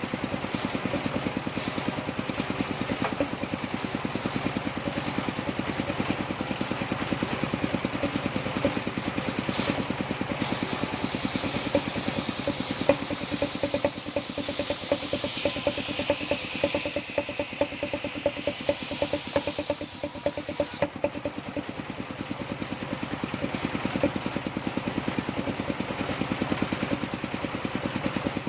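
Engine-driven circular saw (serkel) running with a rapid, even beat, and the blade cutting through wood for about ten seconds in the middle, adding a higher whine that stops abruptly.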